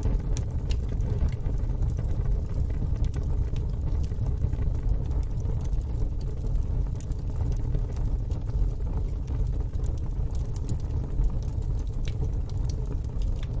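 Wood fire burning in a fire pit, with scattered crackles and pops over a steady low rumble.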